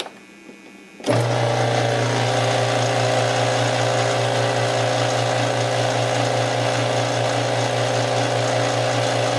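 Electric air compressor kicking on about a second in, its motor and piston pump then running steadily with a loud, even hum.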